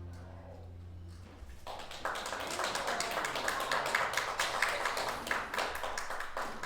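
The band's last held chord fades out, then a congregation applauds with many hands clapping for about five seconds.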